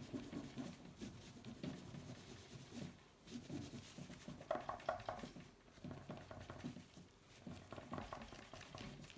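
A cloth with Autosol polish rubbed by hand over the painted die-cast body of a Hot Wheels '65 Mercury Comet Cyclone: faint, irregular rubbing and handling strokes, a little louder about four and a half and eight seconds in.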